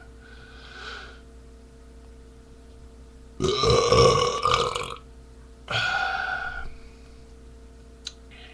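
A man's long, loud beer burp about three and a half seconds in, lasting over a second and a half, followed a moment later by a shorter voiced sound. A faint steady hum runs underneath.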